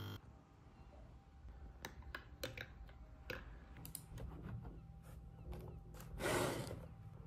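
Scattered light clicks and taps at a desk in a quiet room, then a short rustling hiss a little after six seconds in, the loudest sound.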